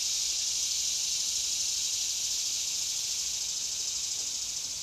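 Steady, high-pitched insect chorus, a dense continuous buzz that holds without a break.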